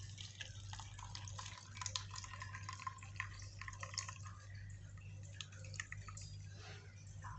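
Freshly boiled herbal jamu being strained: the liquid trickles and drips through a strainer into a container as faint, irregular small drips and splashes.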